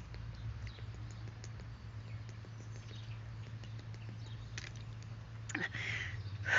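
A person gulping water fast without stopping to breathe, the hiccup remedy of drinking so fast the breath has to be held: faint swallowing clicks, then heavy breaths out near the end. A steady low hum runs underneath.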